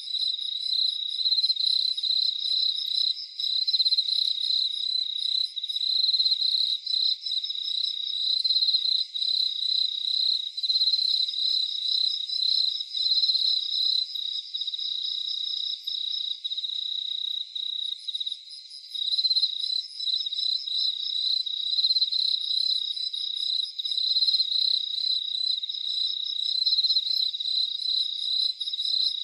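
Crickets chirping in chorus: a steady high trill with rows of fast pulsed chirps above it, thinning briefly a little past halfway.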